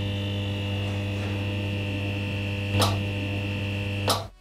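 Steady electric buzzing hum of a neon-sign sound effect, with a short crackle about three seconds in and another just before it cuts off near the end.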